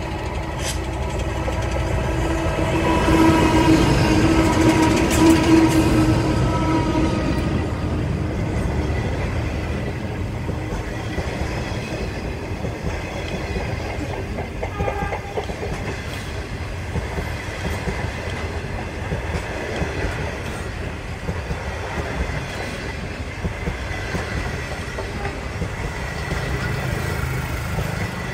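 The Ghan passenger train rolling by. A locomotive's engine note builds to its loudest about four to six seconds in, then gives way to a steady rumble of the carriages.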